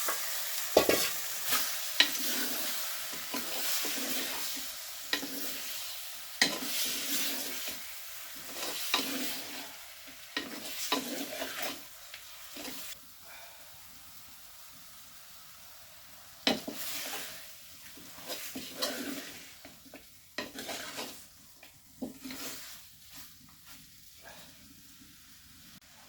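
Raw chicken pieces sizzling in hot oil and masala while being stirred with a spoon, the spoon scraping and knocking irregularly against the pan. The sizzle fades as the stirring goes on.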